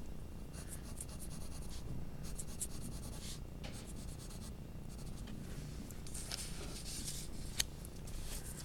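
Graphite pencil shading on paper: quick back-and-forth strokes in short bursts with pauses between them, and one sharp tick about three-quarters of the way through.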